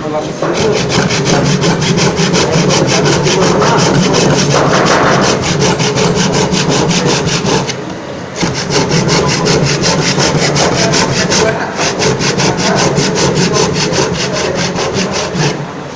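Tenon saw cutting through wood in steady, rasping back-and-forth strokes, pausing briefly about eight seconds in.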